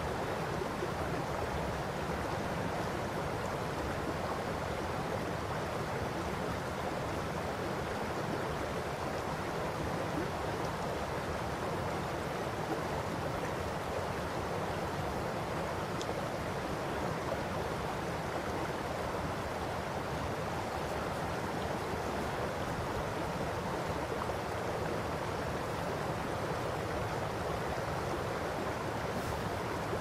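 Shallow river running over gravel and stone riffles: a steady, even babbling rush of water.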